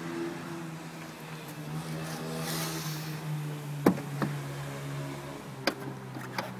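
Door latch and handle of a BMW 520d saloon being worked. There is a sharp click about four seconds in, a lighter one just after, and two more clicks near the end, over a steady low hum.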